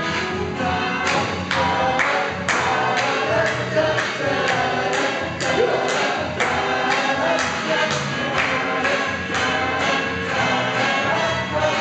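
A congregation singing a song together, many voices at once, over instrumental accompaniment with a steady beat of about two a second.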